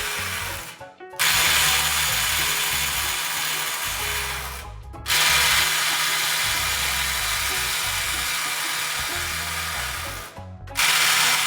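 DeWalt DCF845 cordless impact driver hammering as it tries to break loose 150 foot-pound bolts, in three long runs with brief pauses between them. The tool is struggling: it cannot break all the bolts.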